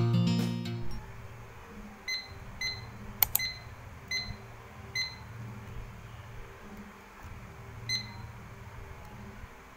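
A small digital countdown timer beeping once with each button press as the minutes are set: about six short, high beeps at uneven spacing, with a couple of sharp button clicks a little past three seconds in.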